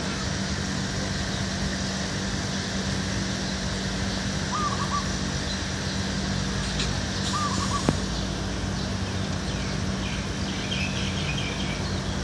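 Steady outdoor background noise with a bird giving a short call twice, about three seconds apart. A brief burst of higher chirping comes near the end.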